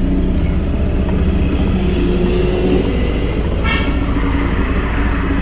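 Small boat's outboard motor running steadily at cruising speed.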